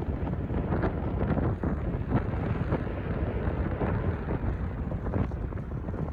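Strong gusty wind blowing across the microphone, an uneven low rush that swells and drops from moment to moment.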